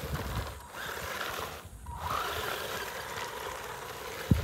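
Twin brushed electric motors of a small 1/12-scale RC monster truck whining as it drives on grass, the whine rising and falling with the throttle. A sharp click near the end.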